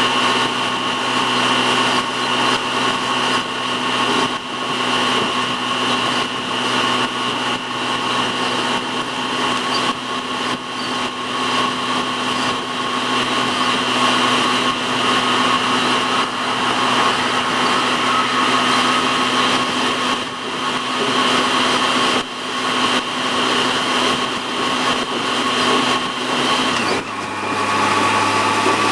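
A Yamaha FJR1300 sport-touring motorcycle's inline-four engine running steadily at highway speed, heard with wind and road noise. About 27 seconds in, the engine note steps down to a lower pitch.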